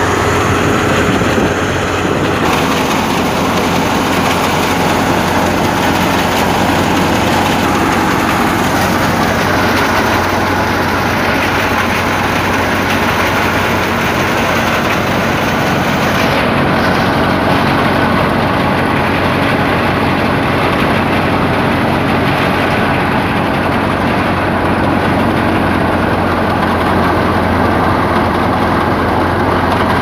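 Tractor-driven wheat thresher running steadily: the tractor engine's hum under the clatter and rush of the threshing drum and shaking sieves as grain and chaff pass through. The high hiss softens a little past halfway.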